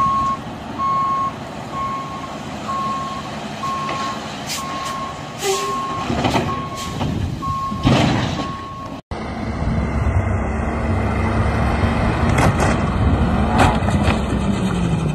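A snowplow dump truck's reversing beeper sounds steadily, then stops about seven and a half seconds in. Sharp knocks and a crash come over the next few seconds, the loudest about 8 s in, as the truck slides on the ice and tips onto its side. After a cut, a heavy truck engine runs with a low, steady rumble.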